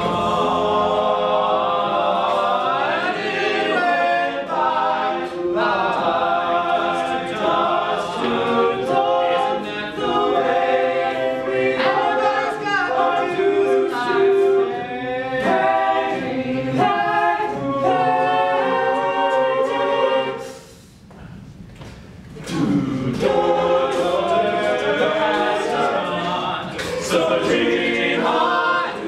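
Men's a cappella group singing in close harmony, several voices at once. The singing breaks off briefly about two-thirds of the way through, then comes back in.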